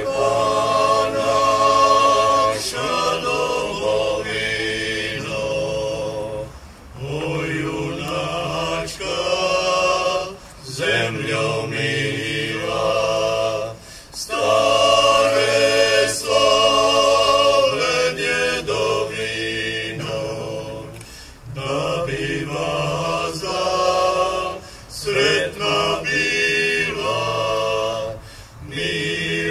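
A choir singing a cappella in sustained phrases a few seconds long, with short pauses between them.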